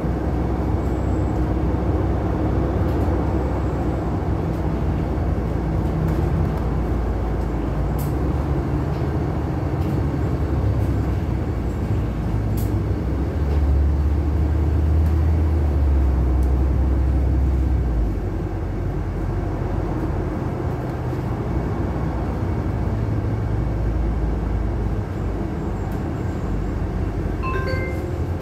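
Inside a moving LiAZ-6213.65 city bus: steady engine drone and road noise. The drone swells louder for a few seconds in the middle, then drops back. Right at the end a stepped electronic chime begins, the signal that comes before the bus's automatic stop announcement.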